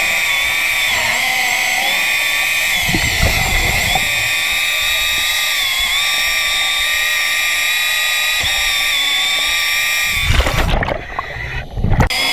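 Hydraulic chainsaw running underwater as it cuts through an old wooden piling: a steady high whine whose pitch wavers slightly under load. Near the end the whine drops out for about a second and a half among low rumbling bursts, then starts again.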